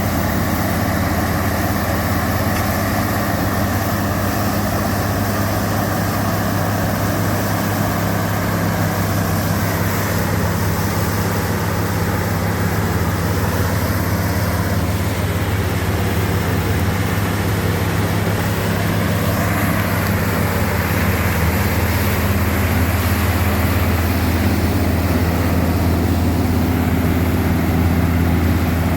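Combine harvester's diesel engine running steadily under load, a constant low drone with machinery noise over it.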